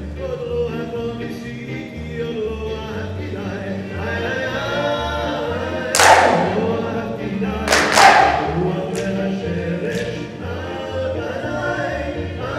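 Upbeat Israeli folk-dance song with sung vocals and a steady bass beat. A few sharp, loud clap-like hits come past the middle, the loudest about six and eight seconds in.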